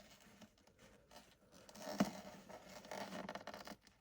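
Faint scraping and scratching as grime is picked out of a front-loading washing machine's rubber door seal, with a single sharp tap about two seconds in.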